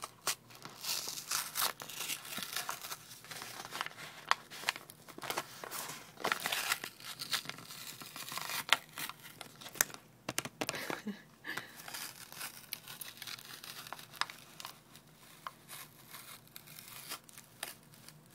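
A paper cup being torn apart by hand: irregular rips, with crinkling and small crackles as the torn paper is pulled and handled.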